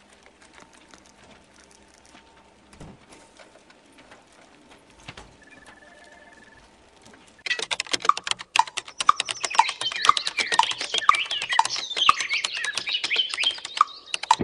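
Computer keyboard typing, faint and sparse at first, then fast and continuous from about halfway, with high chirps over it.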